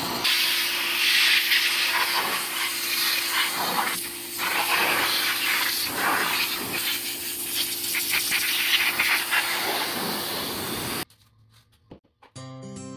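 Pressure washer jet spraying a greasy car engine block: a loud, steady hiss of water with the washer's hum underneath. It cuts off suddenly about eleven seconds in, and music starts near the end.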